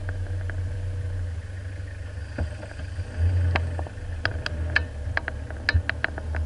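Low engine rumble heard from inside a four-wheel drive's cabin as it moves slowly over a rutted dirt track. From about halfway through comes a string of sharp rattling clicks as the vehicle jolts over the ruts.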